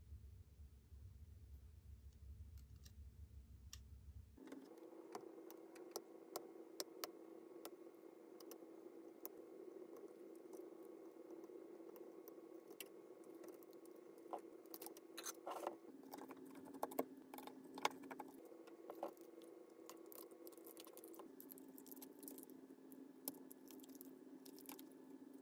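Faint, scattered clicks and light metallic ticks of tweezers and small tools on a Nikon D90's exposed circuit boards and flex cables, busiest in the middle. Under them is a steady soft hum that starts a few seconds in and shifts pitch a few times.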